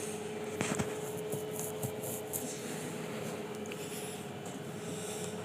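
A metal spoon scraping soft sautéed vegetable filling into bell pepper halves, with a few faint light clicks, over a steady hum.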